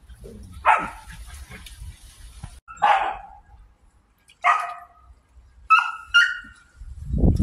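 Dog barking: five sharp barks spread over several seconds, the last two quick and higher-pitched. A loud low rumbling noise starts near the end.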